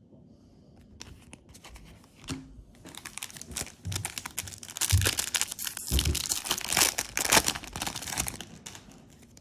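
Foil booster-pack wrapper being crinkled and torn open by hand, with sharp crackles growing louder toward the middle and a few soft thumps as it is handled.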